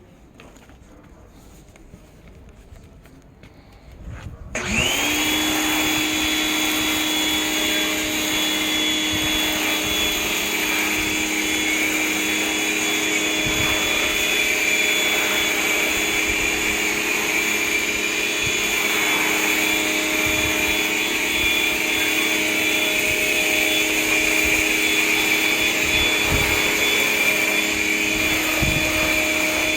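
An electric pressure washer motor starts about four and a half seconds in. Its pitch rises briefly, then it runs with a steady whine to the end.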